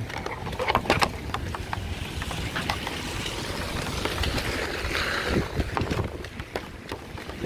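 Rainy city street ambience: a vehicle's tyres hissing on the wet road, swelling and fading around the middle, over a low traffic rumble and scattered sharp taps.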